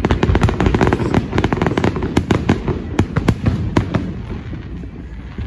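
Aerial firework shells bursting overhead in a rapid barrage: a dense run of sharp cracks over low booming, thinning out after about four seconds.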